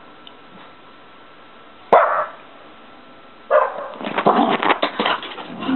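Small shaggy dog barking once, sharply, about two seconds in. In the last two seconds comes a busy flurry of short, sharp noises as it scrambles about in play.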